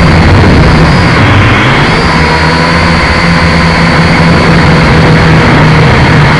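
Quadcopter drone's electric motors and propellers, heard very loud from the onboard camera beside them: a dense buzzing drone with whining tones that shift slightly in pitch as the throttle changes.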